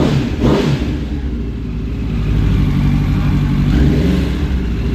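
Honda CBR1000RR Fireblade inline-four engine running at a steady idle. The owner is chasing a knocking noise from this engine.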